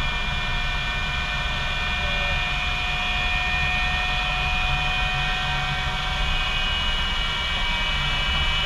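English Electric Lightning's Rolls-Royce Avon turbojet running, heard from inside the cockpit: a steady jet whine of several high tones over a low rumble. A further, higher whine tone joins about six seconds in.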